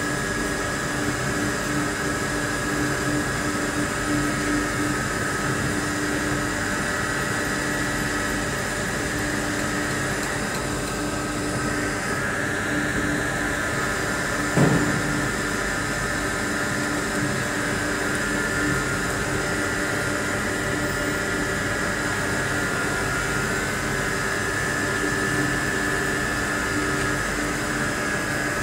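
Wire-cut EDM machine running with a steady mechanical hum and several held whining tones, and a single sharp click about halfway through.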